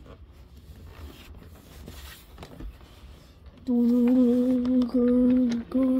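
Faint clicks of wooden toy trains being handled, then, a little past halfway, a voice humming a steady, slightly wavering note in long held stretches with short breaks, a train-engine noise made for the toy locomotive being pushed along.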